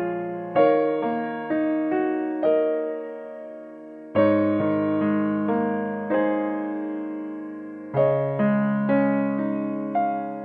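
Slow background piano music: single notes and chords struck and left to fade, with a fuller chord about every four seconds.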